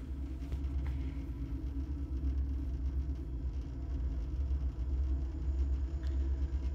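Norfolk Southern diesel-electric locomotives running past, a steady low engine rumble with a throbbing drone.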